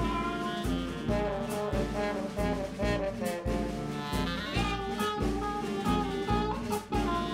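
Background jazz music with a steady beat.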